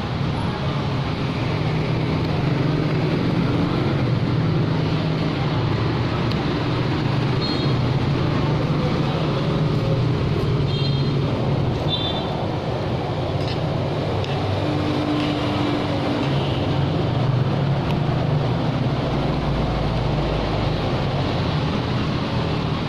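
Steady road traffic noise, with engines running past. Faint light clinks of a spoon and fork on a plate come through now and then.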